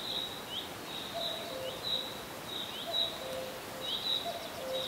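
Bird chirps in a forest, short repeated calls over a steady high-pitched tone, with a lower two-note call repeating about every second and a half.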